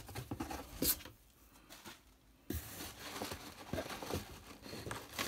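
Cardboard box flaps and packing being handled: rustling, crinkling and scattered scrapes and clicks of cardboard. There is a sharp snap about a second in, a short lull, and then the rustling picks up again.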